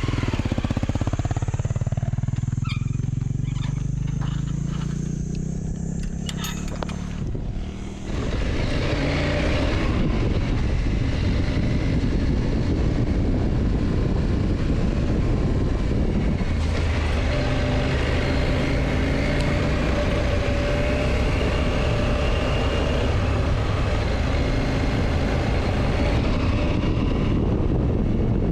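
KTM motorcycle being ridden, its engine note changing over the first several seconds. About eight seconds in it grows louder and runs steadily at speed under heavy wind rush on the microphone.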